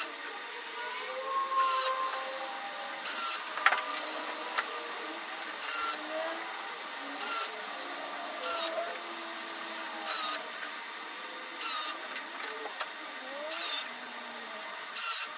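Small cordless electric drill driving threaded traction studs into the rubber tread of a robot lawn mower wheel, running in short bursts every second or two as each stud is screwed in. The footage is sped up.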